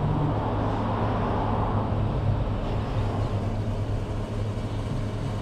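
Fuel dispenser pump running steadily while gasoline is pumped into a portable fuel can, a constant low mechanical hum.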